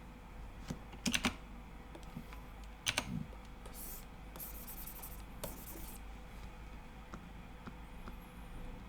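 Computer keyboard keys clicking a few times, some in quick clusters of two or three, with a few short high-pitched scratchy strokes in between.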